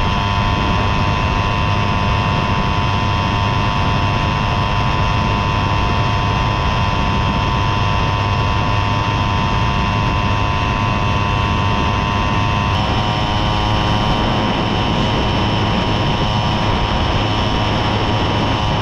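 Tomos moped's two-stroke engine, fitted with an Airsal T3 65 cc cylinder kit, running steadily at a cruising speed of about 45 km/h. Its pitch steps slightly about two-thirds of the way through.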